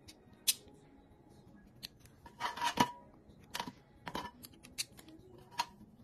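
Metal clicks and snaps of a folding multitool being handled as its tools are swung out and its bit holder taken out: one sharp click about half a second in, a louder cluster of clicks and rattling a little before the three-second mark, then several single clicks.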